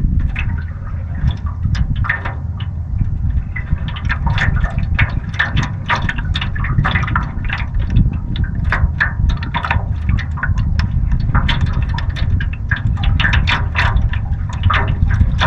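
Small waves lapping and splashing against a canoe's hull in many short, irregular slaps, over a steady low rumble of wind on the microphone.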